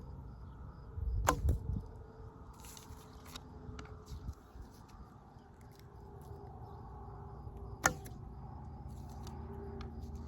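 Two sharp cracks about six and a half seconds apart. The first comes about a second in, inside a short low thump, and both sit over a faint steady background.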